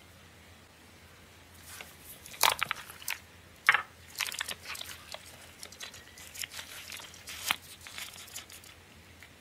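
Clear plastic film wrapped around a toy capsule crinkling and tearing as it is pulled off by hand, with two loud sharp crackles early on, then lighter crinkling of the wrapper and paper parts being handled.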